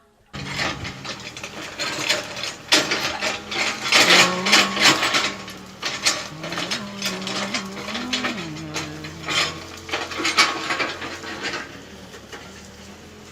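Mechanical clattering and rapid clicking over a steady hum, starting suddenly, with the hum rising in pitch briefly twice midway and the clatter easing near the end.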